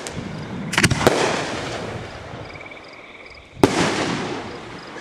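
Aerial firework shells bursting overhead: two sharp bangs close together about a second in, then a louder one about three and a half seconds in, each dying away in a rumbling echo.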